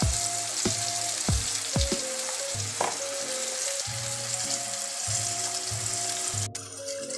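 Tilapia fillets sizzling as they pan-fry in hot oil in a skillet, a steady crackling hiss. The sizzle drops off suddenly near the end.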